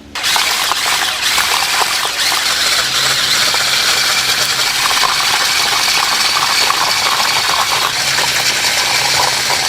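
Chicken deep-frying in hot oil: a loud, steady sizzle with crackling that starts and stops abruptly.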